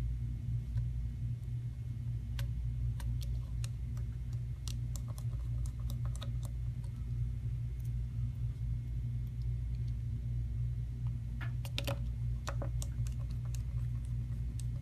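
Small, sparse clicks and ticks of a precision screwdriver and tiny screws being set into the headphone jack bracket of an opened iPod Touch, with a short cluster of clicks near the end. A steady low hum runs underneath.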